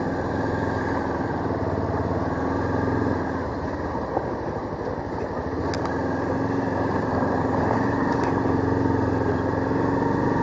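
Motorcycle engine running steadily under way, mixed with road and wind noise. The engine note falls away for a second or two about three seconds in, then picks up again.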